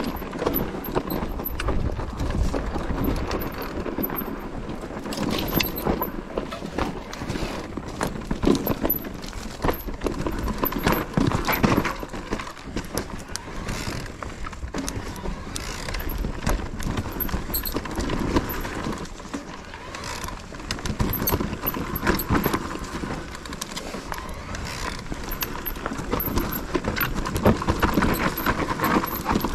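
Enduro mountain bike ridden over rough trail: tyres on dirt and stones, with the bike's frame, chain and parts rattling and knocking irregularly throughout.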